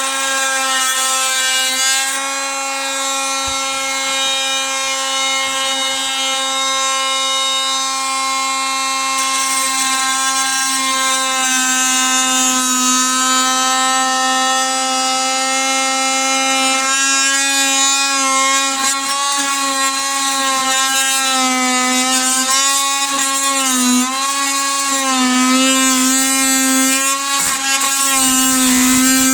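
Metabo MT 18 LTX cordless oscillating multi-tool with a wood-cutting blade, plunge-cutting through a wooden cupboard panel: a loud, steady, high buzz whose pitch dips and wobbles again and again in the second half as the blade loads up in the cut.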